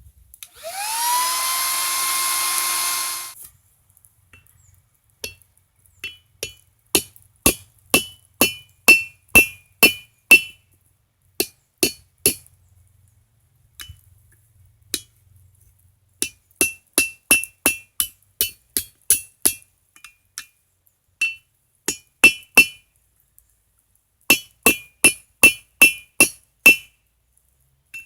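Hand hammer blows on a steel anvil, pounding the steel of an old garden hoe flat and straight, in runs of sharp ringing strikes at about two to three a second with short pauses between runs. At the start a whirring hiss rises in pitch and then holds for about three seconds before stopping.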